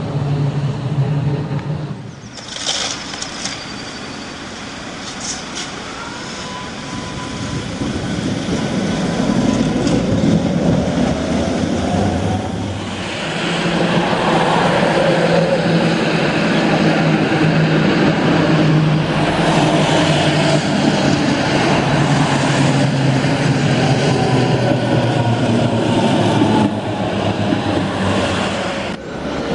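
Street traffic with a Tatra KT4D tram running past: the tram's running noise with a faint whine that rises and falls, mixed with cars driving by. The sound changes abruptly twice, where separate recordings are joined.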